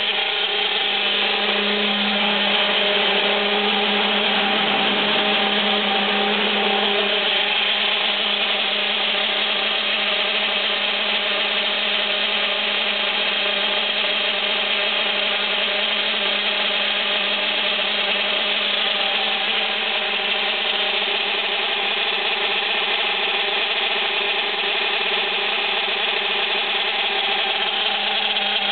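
CEN Nemesis RC truck's engine idling steadily at one pitch, with the gears meshing. The uploader takes it for a rough idle and a gear mesh problem.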